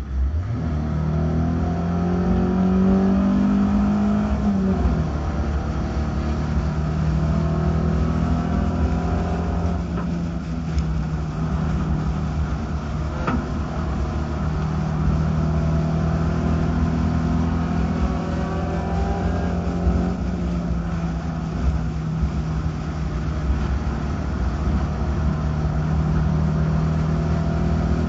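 Race car engine heard from on board during a race, its pitch climbing over the first few seconds, dropping about five seconds in, then holding nearly steady as the car runs in the pack.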